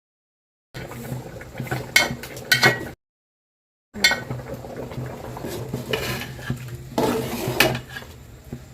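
Metal utensils clinking and scraping against cookware, with sharp clatters among quieter scraping over a low steady hum, broken by two sudden silent gaps.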